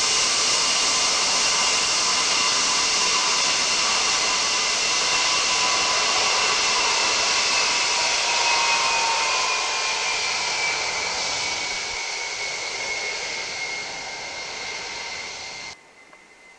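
Ilyushin Il-76's four turbofan engines whining loudly as the freighter moves away along the runway, the whine sagging slightly in pitch and fading from about ten seconds in. The sound cuts off abruptly near the end.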